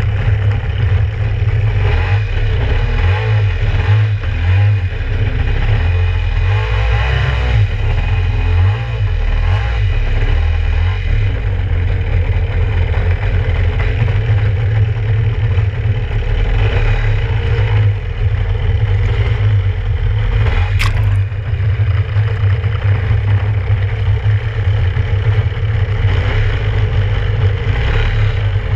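Kawasaki 650SX stand-up jet ski's two-stroke engine running under way, mixed with the rush of water and spray against the hull. It is heard as a heavy, steady low rumble, with the engine note swelling and shifting partway through. There is a single sharp click about two-thirds of the way in.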